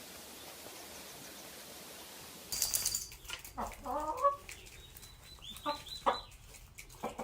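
A steady hiss, then about two and a half seconds in a sudden loud clatter. After it, a chicken clucks and squawks in a series of short calls, one of them longer and gliding in pitch.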